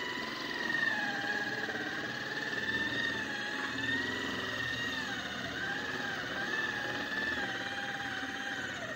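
Electric drill running under load as it drills out a bronze thru-hull fitting from outside the hull: a steady motor whine whose pitch dips and recovers now and then as the bit bites.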